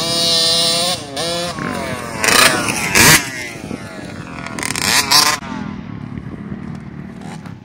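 Small youth 50cc two-stroke dirt bike revving as it rides the track, its engine pitch rising and falling over and over, then fading after about five seconds. Several short, loud rushes of noise cut across it near the middle.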